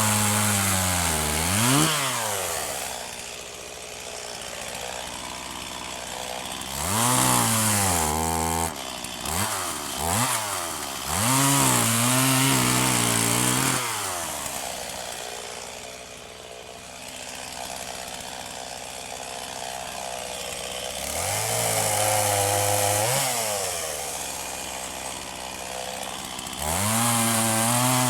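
Stihl MS250 two-stroke chainsaw idling and being revved up to high speed in bursts of a few seconds, about six times, dropping back to idle after each.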